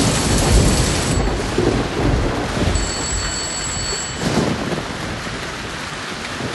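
Heavy rain pouring steadily, with thunder rumbling at the start and again a little past halfway. A thin, high steady tone sounds briefly in the middle.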